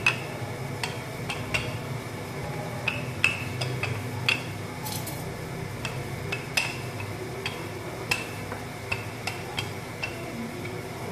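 Wooden rolling pin rolling out dough on a marble counter, with irregular sharp clicks and knocks as the pin meets the stone, over a steady low hum.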